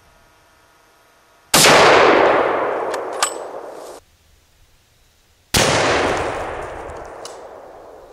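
Two loud .375 H&H Magnum rifle shots about four seconds apart. Each is a sharp crack followed by a long rolling echo that fades over about two seconds, and the first is cut off abruptly.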